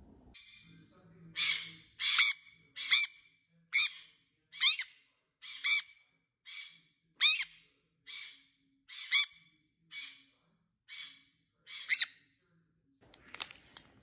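Black-capped conure giving a series of about a dozen short, shrill alarm calls, one just under every second, each arching up and down in pitch: the warning it sounds at an intruder. A brief clatter of clicks near the end.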